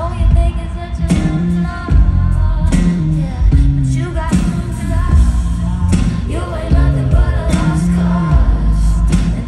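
Female pop singer singing live into a microphone over a loud band backing with heavy bass and a drum hit about once a second, heard from within the concert crowd.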